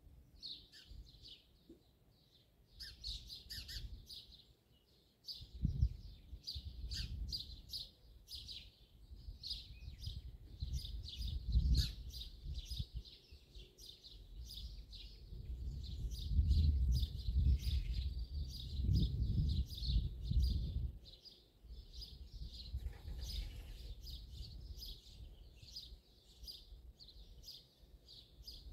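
Dawn chorus of songbirds: many rapid, high chirps and short song phrases overlapping without a break. Under them a low rumble swells and fades through the middle stretch and is the loudest sound.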